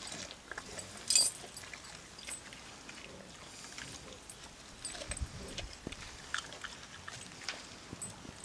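A dog gnawing and snuffling at food on the dirt ground: scattered small clicks and scrapes, with one brief sharp rattle about a second in.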